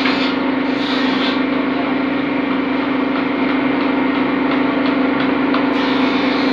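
A loud, steady machine-like hum: one constant low drone over a hiss, unchanging throughout.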